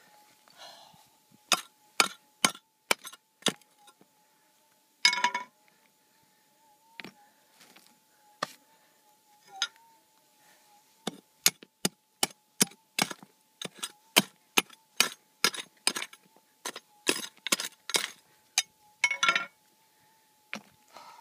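Rocks being prised out and knocked together while digging at a metal-detector target in bedrock: a long run of sharp stone clinks and knocks, with a longer scraping rasp about five seconds in and another near the end. A faint steady tone, the metal detector's threshold hum, runs underneath.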